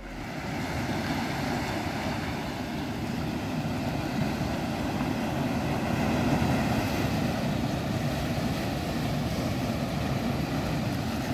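Ocean waves washing over and around shoreline rocks: a steady rushing sound that swells slightly around the middle.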